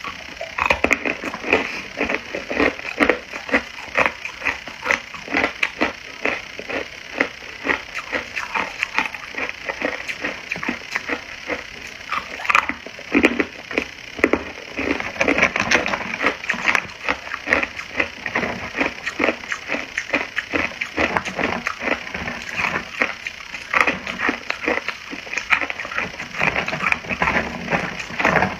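Hard ice being bitten and chewed: a rapid, dense run of crunches and cracks.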